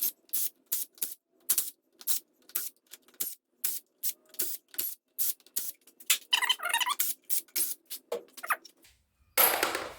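Hand tools working on the Honda CB350 Four engine's cylinder head during teardown: a quick run of sharp metallic clicks, about three a second. A rasping squeak comes in the middle, and a louder scraping rush comes near the end.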